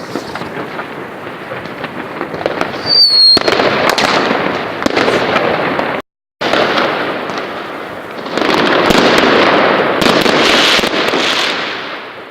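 Fireworks salute going off in a dense barrage of bangs and crackling, with a short whistle about three seconds in. The sound cuts out for a moment around six seconds, is loudest in the last few seconds, then fades out.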